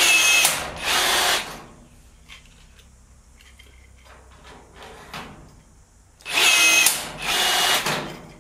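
Bosch 18V cordless rivet gun setting pop rivets with its auto mode on. Its motor runs twice in quick succession near the start, then again twice about six seconds later.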